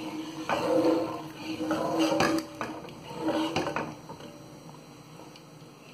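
A spoon stirring in a metal pot of heating frying oil and rosin, scraping and clinking against the pot's bottom and side in three short bouts. It is quieter near the end.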